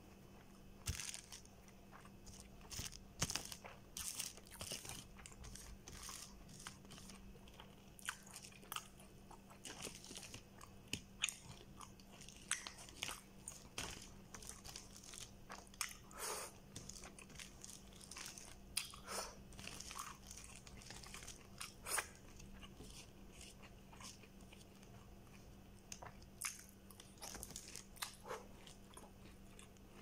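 Close-up chewing of nasi kandar rice and fried chicken eaten by hand: irregular crunchy, wet mouth clicks and smacks, with a faint steady hum underneath.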